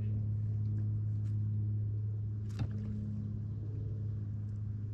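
Electric trolling motor driving a canoe, running with a steady low hum. A single light click about two and a half seconds in.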